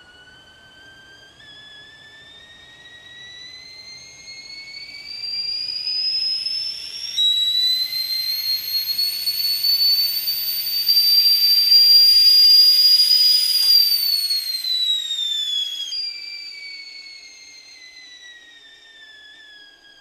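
Whistling kettle at the boil. Its whistle rises slowly in pitch, jumps up about seven seconds in and grows loud with a rush of steam hiss, then drops back down in pitch about sixteen seconds in and fades away.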